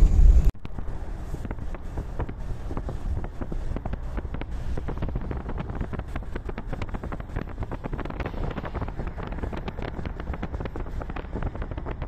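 Loud rumble of traffic on a wet road that cuts off about half a second in; after that, wind buffets the microphone in gusts over the steady low rumble of the moving vehicle.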